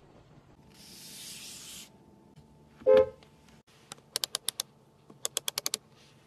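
The knurled rotary temperature dial of a Bentley Continental GT's climate control being turned, giving two quick runs of crisp detent clicks, about six and then seven. A brief hiss and a short pitched tone, the loudest sound here, come before the clicks.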